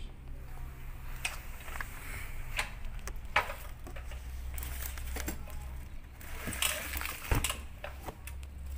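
Light clicks and knocks of a newly unboxed Modern M3700B 7-inch aluminium-cutting miter saw being handled and set up by hand, with one sharper knock about seven seconds in.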